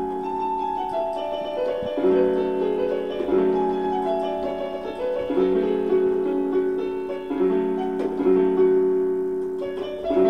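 Yamaha F50 portable keyboard played in a piano voice: slow held chords in the low register, struck about every one to two seconds, under a simple melody of single notes.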